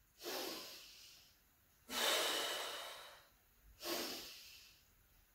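A woman's slow, deep breathing during a breathing exercise: three audible breaths about two seconds apart, each starting suddenly and fading away.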